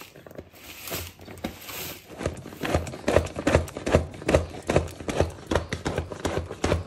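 Hand-pressed manual food chopper chopping raw green mango, onion, coconut and chillies: a fast, even run of clacking strokes, about three a second, starting about two seconds in.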